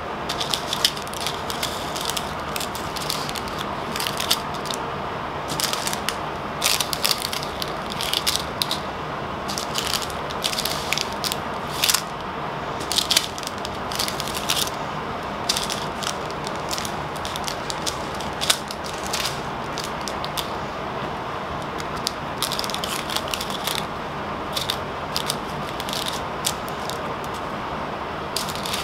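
Small plastic bags of round diamond-painting drills crinkling and rattling as they are handled and laid down on a tabletop. The clicks come irregularly throughout, over a steady background hiss.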